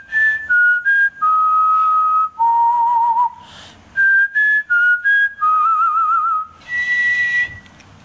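A tune whistled in clear single notes. Two similar phrases of short notes step down and end on a longer note with a wavering vibrato, then one higher note is held near the end.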